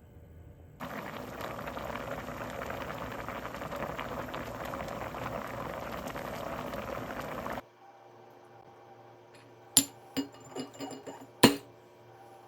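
A steady rush of water that starts and stops abruptly, then a few sharp clinks of glass, the last two the loudest.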